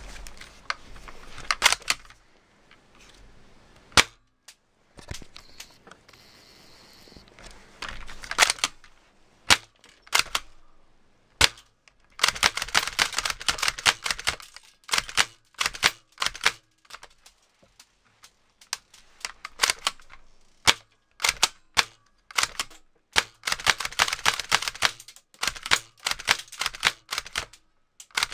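Tokyo Marui VZ61 Scorpion electric airsoft machine pistol firing, with single shots mixed with rapid full-auto bursts. The longest bursts last about two seconds, around the middle of the clip and again near the end.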